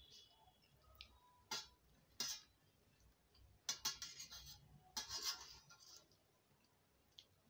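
Metal spoon clinking and scraping against a steel plate while scooping up pasta: two short clinks, then two longer scrapes in the second half.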